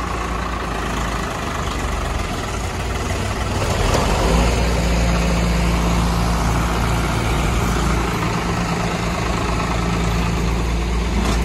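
Diesel tractor engines working under load as a Swaraj 744 FE with a loaded trolley is towed out of mud by two tractors chained ahead of it. The engines get louder about four seconds in as the pull takes up, then hold a steady hard-working note.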